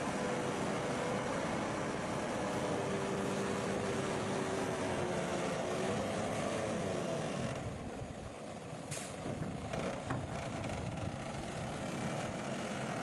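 Heavy construction machinery and trucks running, a steady engine drone whose pitch wavers slightly. About two-thirds of the way through the drone eases off and a sharp click is heard.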